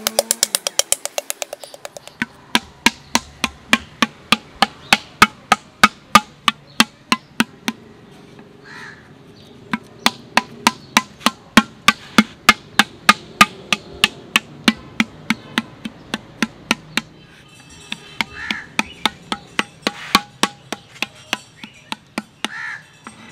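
Unfired clay pot being beaten into shape with a flat paddle against a hand held inside the pot: sharp knocks repeated about three times a second, thinning out briefly around eight seconds in.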